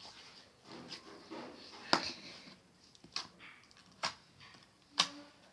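Slime being squeezed and pulled by hand: soft squishing with four sharp sticky pops about a second apart, the loudest about two seconds in.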